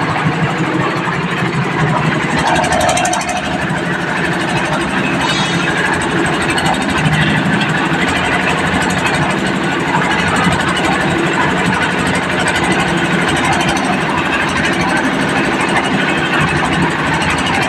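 One-bag concrete mixer running, its engine making a loud, steady, unchanging mechanical noise.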